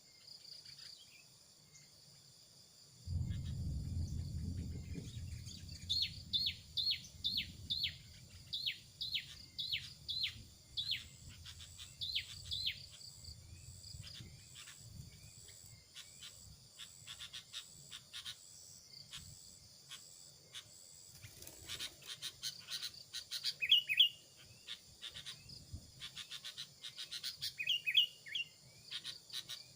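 Small birds calling in quick runs of sharp, falling chirps over a steady high drone of insects. A low rumble about three seconds in fades over the next few seconds.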